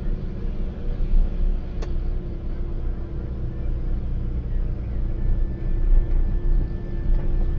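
Car engine and road rumble heard from inside the cabin while driving, steady and low, with a faint steady engine tone. A single sharp click about two seconds in.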